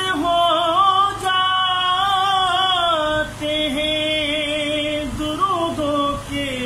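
A man singing a naat unaccompanied, in long held notes that waver and bend in pitch, with a short breath a little after three seconds in.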